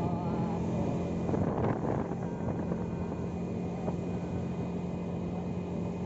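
An engine running steadily at an even pitch, with a rushing noise over it.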